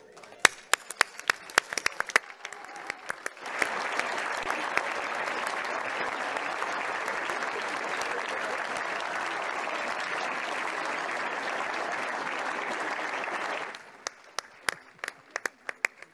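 Audience applause: scattered claps swell into full, dense applause about three seconds in, which stops abruptly near the end and leaves a few single claps.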